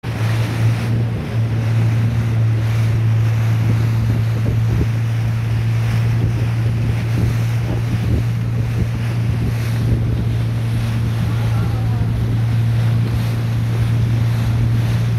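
Motorboat engine running at a steady low drone, with water rushing past the hull and wind gusting on the microphone.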